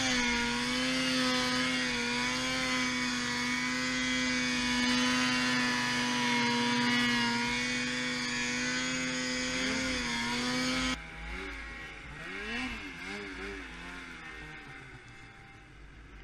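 Snowmobile engine running steadily at high revs. About eleven seconds in it drops off abruptly to a quieter engine sound whose revs rise and fall, fading away.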